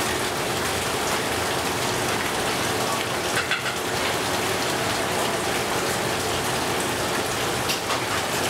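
Steady splashing hiss of water running into a tub of live eels, with a faint steady hum under it.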